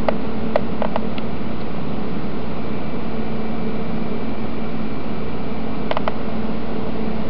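Steady machine-like hum and hiss, with a few light clicks about half a second to a second in and a pair of clicks around six seconds in.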